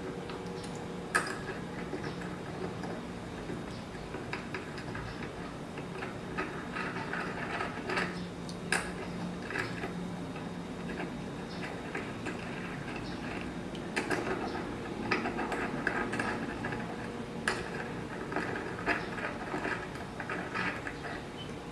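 Light metallic clicks and clinks of bolts and a hand tool on machined metal parts, as bolts are fitted and snugged on a CNC Z-axis linear-rail assembly, with a few sharper knocks. A low steady hum runs underneath.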